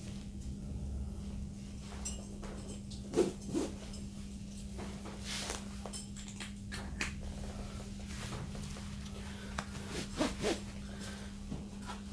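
Rustling of a pack and its straps being handled, with a few sharp clicks in pairs about three seconds in and again about ten seconds in, over a steady low hum.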